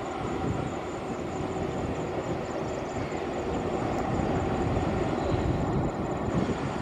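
Passenger train running along the track, a steady low rumble of wheels on rails that slowly grows louder as it approaches.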